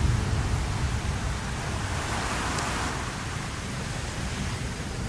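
Anak Krakatau volcano erupting: a low rumble with a steady hissing roar over it, the rumble easing in the first second or so.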